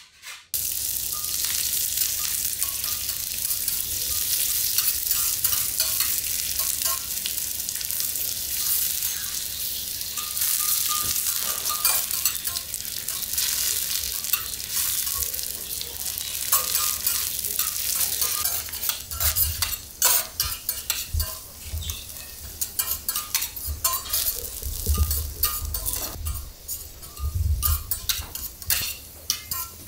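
Sendai beef chateaubriand sizzling on a hot teppan griddle, the sizzle starting suddenly about half a second in. In the second half the sizzle thins and sharp metal clicks and scrapes of the chef's spatulas on the steel plate come through, with a few dull knocks.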